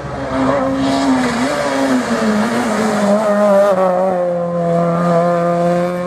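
Rally car engine running at high revs, its pitch wavering through the first half and then held steady toward the end.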